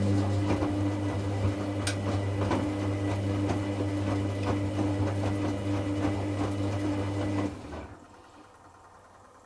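Hoover Classica 1100 AC164 washing machine's motor turning the drum during a rinse tumble: a steady motor hum with irregular clicks from the tumbling load. The motor stops about seven and a half seconds in, as the drum pauses between tumbles.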